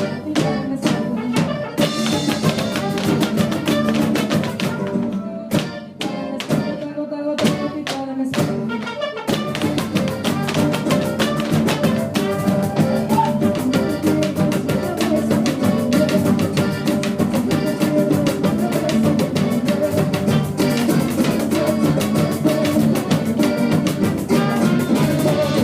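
Instrumental Mexican music played by a band, counted in just before: sharp, separate hits with gaps at first, filling out into a full, steady groove about nine seconds in.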